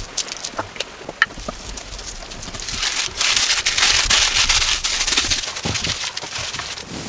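Rain falling: a few sharp clicks and crackles, then a rushing hiss that swells for a few seconds and fades.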